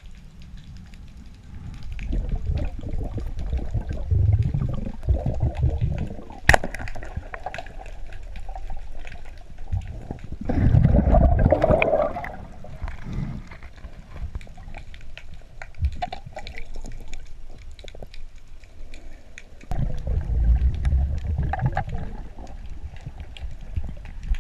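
Underwater sound picked up by a GoPro in its housing during a freedive through kelp: low rushing water noise and muffled thumps from the diver's movement, with scattered clicks and one sharp click about six seconds in. A louder rushing burst comes around the middle and again near the end.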